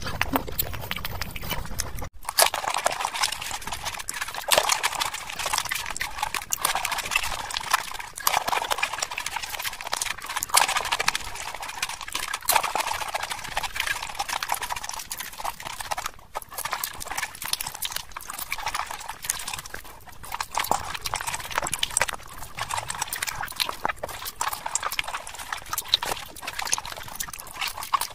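Close-miked eating sounds: chewing, crunching and wet mouth clicks, dense and continuous. The sound changes abruptly about two seconds in, where one eater gives way to another.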